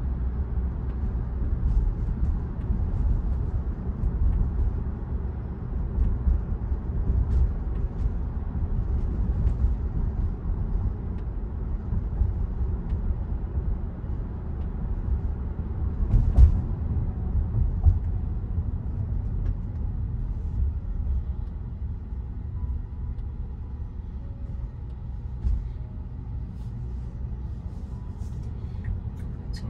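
Low road and tyre rumble inside a Tesla electric car's cabin while driving, with a thump about sixteen seconds in. It grows quieter over the last several seconds.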